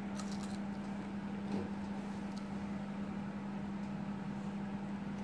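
A steady low mechanical hum at one pitch, with a few faint light clicks of a knife cutting salmon head on a wooden cutting board, mostly in the first half-second and once again more than two seconds in.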